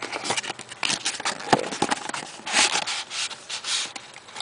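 Cardboard packaging of a phone case being handled and opened close to the microphone: scattered clicks and taps, with rubbing and scraping of cardboard, heaviest from about two and a half to four seconds in.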